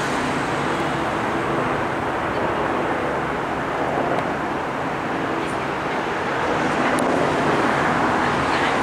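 Robinson R44 Raven helicopter passing overhead: its two-blade main rotor and six-cylinder piston engine make a steady drone that grows a little louder near the end as it comes closer.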